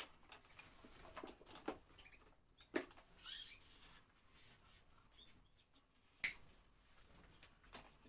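Caged canaries rustling and fluttering, with a quick run of short chirps about three seconds in. Scattered light clicks and knocks run through it; the sharpest and loudest comes a little after six seconds.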